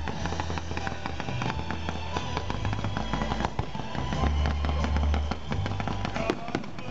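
Fireworks display: rapid, dense popping and crackling as fans of comet shells are fired, over music with a heavy low bass.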